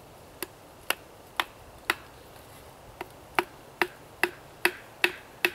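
Wooden baton striking the spine of a knife to drive the blade into a green stick, cutting a notch for a pot hanger: about eleven sharp knocks, roughly two a second, with a short pause about two seconds in.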